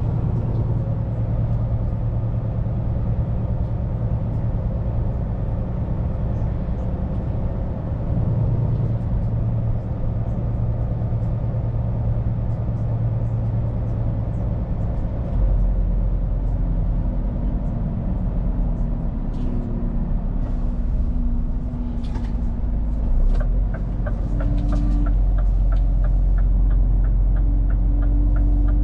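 Scania P410 truck's diesel engine running, heard from inside the cab, with a steady drone whose note drops and deepens about halfway through. About two-thirds of the way in, a regular ticking starts, a few ticks a second, like the cab's turn-signal relay.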